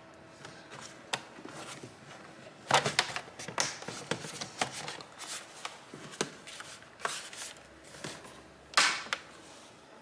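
Plastic bottom cover of an MSI GL75 Leopard laptop being pressed back onto the chassis by hand: irregular plastic clicks and knocks as the clips are worked into place, the loudest about three seconds in and near the end. One edge is stubborn and not yet seating fully.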